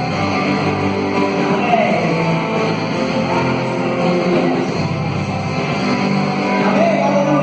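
Live band music with electric guitar, in a rock style.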